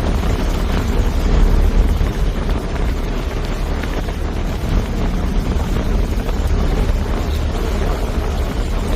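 Fishing boat's engine running steadily, a continuous low rumble with no change.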